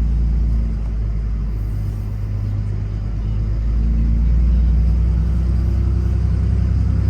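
Diesel pickup engine with a stock Holset HE341 turbo, pulling hard in third gear under the load of a sled: a deep, steady drone that eases slightly about a second in and builds louder again from about four seconds.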